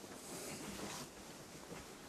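Faint rustling, loudest from just after the start to about a second in, over quiet room tone.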